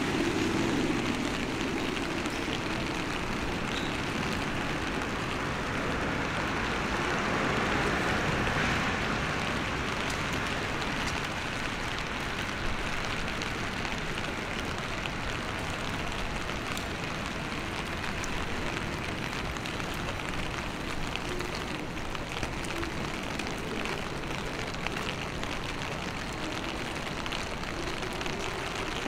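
Steady rain with the hiss of traffic on a wet city street; the hiss swells briefly about a quarter of the way in.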